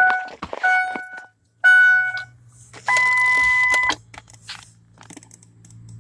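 Dashboard warning chimes of a 2003 Ford Expedition as the key is turned to the on position: three chimes about a second apart, then a higher steady beep lasting about a second. A low steady hum comes in under them and grows toward the end.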